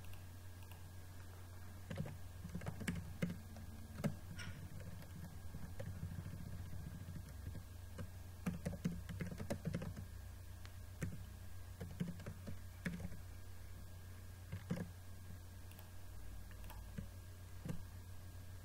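Typing on a computer keyboard: irregular, quick keystrokes with short pauses between runs, over a low steady hum.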